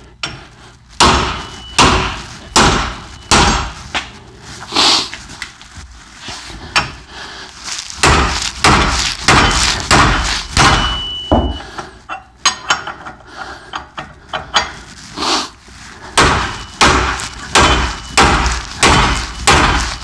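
Sledgehammer striking a hammer wrench on an OTC hub puller's forcing screw, metal on metal: about two dozen hard blows in a steady rhythm with a couple of short pauses. They are meant to drive a seized CV axle out of a rear wheel hub that will not come free.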